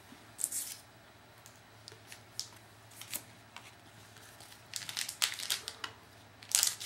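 Baseball trading cards being handled and flipped through by hand: a string of short paper rustles and card flicks, busiest from about five seconds in and again near the end.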